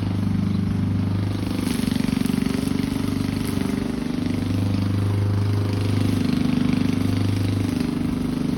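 Gasoline lawn mower engine running steadily while cutting grass, its hum swelling and easing every couple of seconds.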